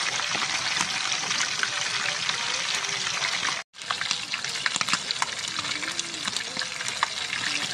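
Chicken pieces deep-frying in hot oil in a small camping pan: a steady sizzle with scattered crackling pops. The sound cuts out abruptly for a moment about halfway through.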